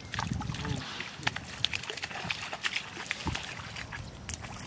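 Quick clicks, light splashes and rustling as small fish are jerked out of a weedy pond on bamboo poles and flap on the grass, with a brief voice-like sound about half a second in.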